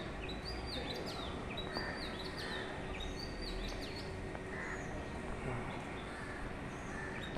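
Birds chirping: short high calls repeated every second or so, over a steady background haze.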